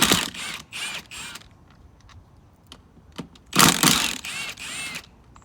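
Battery-powered hand tool spinning beadlock ring bolts out of a Weld wheel in short runs: three quick bursts at the start, then two more after a pause of about two seconds. The bolts come out easily, with no sign of rust binding them.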